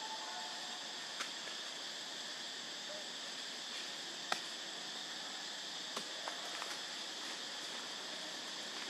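Steady, high-pitched drone of insects calling in the surrounding woods. A few sharp taps come through it, the loudest about four seconds in.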